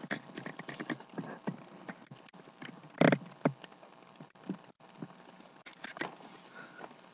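Irregular light taps and clicks, with one louder knock about three seconds in.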